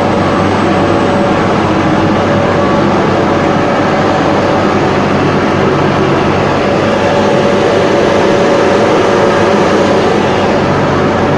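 Buldog DUPLEX double-sided calibrating and sanding machine running: a loud, steady machine noise from its motors and rollers, with a constant hum and no starts or stops.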